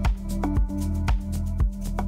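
Background music: an electronic track with a steady beat, about two beats a second, over a bass line and held synth notes.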